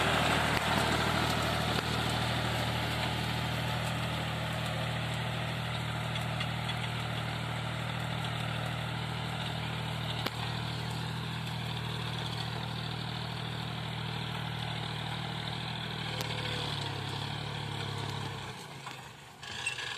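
Tractor engine running steadily while pulling a seed drill through tilled soil. The sound changes about 16 seconds in and drops away briefly near the end.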